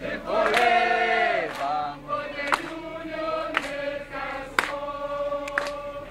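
A group of people singing together in long held and sliding notes, with a sharp beat about once a second.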